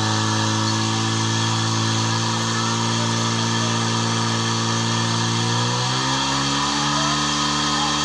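Portable fire pump's engine running at high, steady revs while pumping water through the hoses in a firefighting-sport attack run; about six seconds in its pitch climbs and holds higher as it is revved up.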